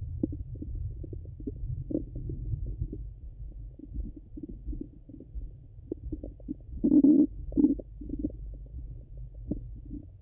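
Bowel sounds of a full stomach heard through a Littmann stethoscope on the abdomen: a low, steady rumble with frequent short gurgles and clicks. A louder gurgle comes about seven seconds in, followed by a shorter one.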